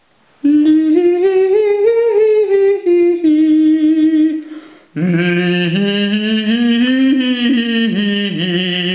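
A voice humming a wordless tune unaccompanied, in two long held phrases. The first is higher and rises, then falls. After a brief break about halfway, the second comes in lower and brighter.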